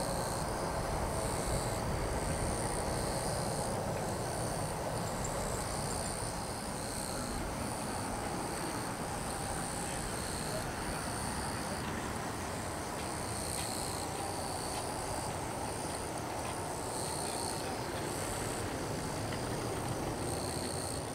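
Jet engines of an Airbus A320-211 (CFM56-5A turbofans) at takeoff thrust as the airliner accelerates away down the runway and climbs out, a steady distant rumble that slowly fades. High-pitched insects buzz over it in calls that start and stop every few seconds.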